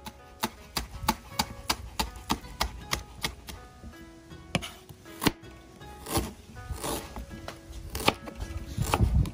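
Knife chopping green onion and fresh ginger on a plastic cutting board: a quick, even run of chops about three a second, then slower, scattered strikes and a louder, denser stretch near the end.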